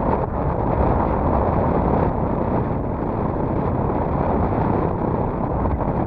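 Strong wind buffeting the microphone: a loud, steady low rushing noise, with wind-driven water moving around the boat.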